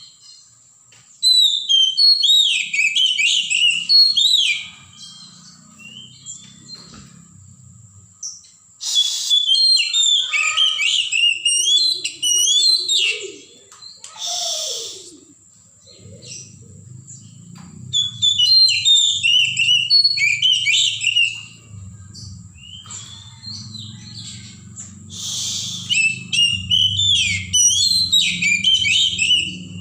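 Oriental magpie-robin singing in four bouts of rapid, varied whistled phrases, each a few seconds long with short pauses between.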